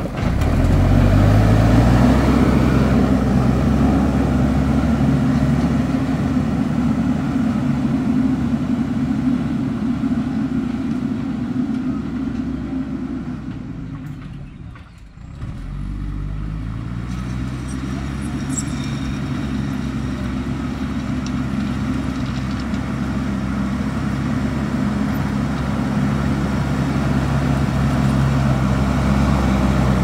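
JCB backhoe loader's diesel engine running hard as the front bucket pushes gravel; the engine note climbs near the start, drops away briefly about halfway, then climbs again and runs on steadily.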